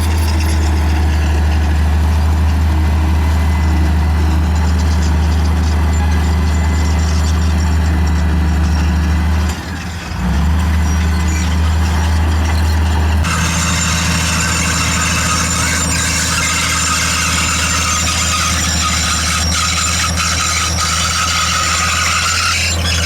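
Bulldozer's heavy diesel engine running with a steady low drone, dipping briefly about ten seconds in. About thirteen seconds in the sound changes abruptly and a high hissing, rattling noise joins the engine.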